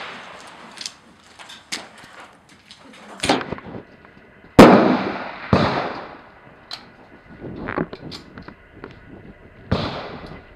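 Kimber 1911 .45 ACP pistol fired slowly, about five shots a second or two apart, each shot ringing out and dying away; the loudest comes about halfway through.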